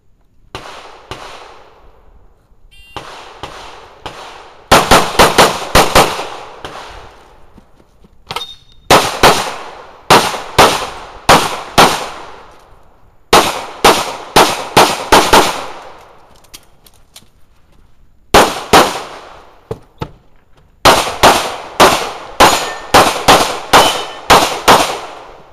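Semi-automatic pistol fired in quick strings of shots, several bursts of a few shots each separated by pauses of one to three seconds, each shot sharp with a short echo. The first few seconds hold fainter shots; the strings are loud from about five seconds in.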